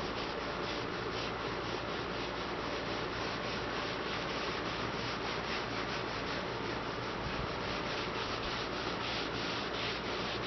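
A rag wiping metal conditioner over a sanded steel patch-panel seam filled with body solder. It is rubbed back and forth in a steady rhythm of about three strokes a second.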